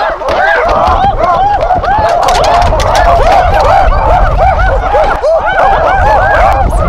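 A chorus of ape-like hoots and shrieks from several voices at once: rapid overlapping calls, each rising and falling in pitch, with no letup, over a low rumble.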